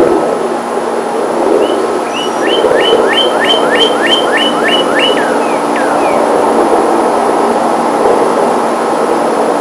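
Steady drone of an aircraft engine overhead. Through the middle, a bird sings a quick run of about a dozen down-slurred whistles, roughly four a second.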